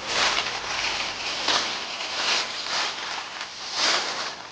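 Melon vines and leaves rustling as they are pushed aside by hand, a series of irregular swishing rustles.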